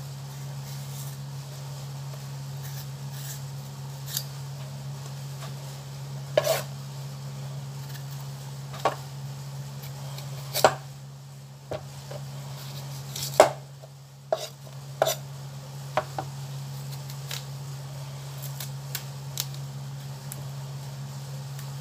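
Kitchen knife peeling a chayote: a dozen or so short, sharp scrapes and taps of the blade at irregular intervals, over a steady low hum.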